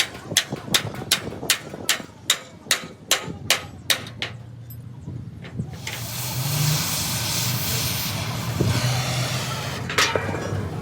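Hammer blows on metal in an even rhythm, about two and a half a second, stopping about four seconds in. Then a steady loud hiss for about four seconds, and a single knock near the end.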